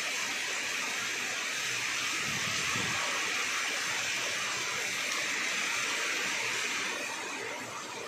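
Steady rain falling on dense broad-leaved foliage, easing off a little near the end.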